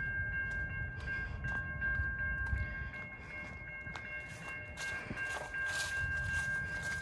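Freight train of covered hopper cars loaded with frac sand passing, giving a low rumble. Over the rumble runs a steady high-pitched squeal of several held tones, with scattered clicks.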